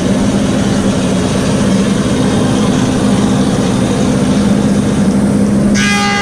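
Woodmaster 725 planer cutting a hard Osage orange slab: a loud, dense, steady roar of the cutterhead knives over a steady motor hum. Near the end the cut stops and the planer runs on with a steady whine.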